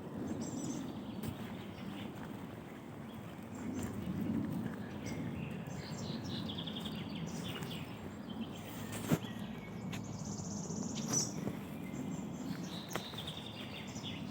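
Songbirds singing in spring woodland: several short, high trilled phrases from more than one bird, over a steady low background rumble, with a few sharp clicks, the loudest about nine seconds in.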